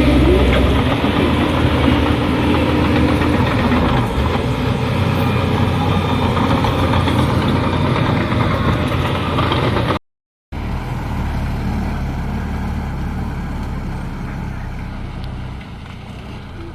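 Diesel engines of heavy earthmoving machinery running steadily. The sound cuts out for a split second about ten seconds in, then comes back a little quieter and drops again near the end.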